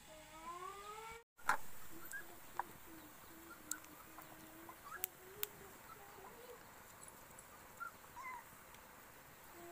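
Puppy whining: a long, wavering, low whine with short high squeaks over it, and a few sharp clicks.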